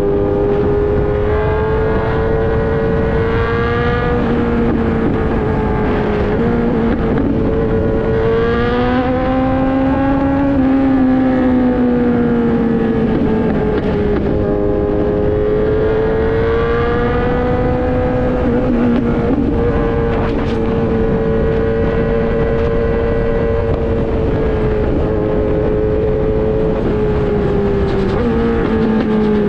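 Kawasaki Z900 inline-four engine through an Austin Racing full exhaust, running at steady cruising revs. The pitch rises and falls gently a few times as the throttle opens and eases off, over a constant rush of wind noise.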